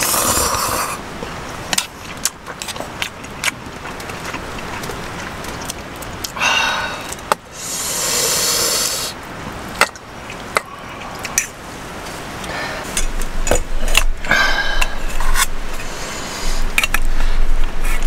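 Metal camping cookware and utensils clinking and scraping as noodles are tipped from a stainless steel cup into a pot of stew and rice is scooped with a wooden spoon. Irregular sharp clicks throughout, with a longer rustling hiss a few seconds before the middle.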